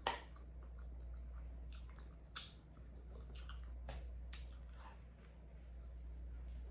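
A person chewing food close to the microphone: scattered wet smacks and clicks, the sharpest at the very start and about two and a half seconds in, over a low steady hum.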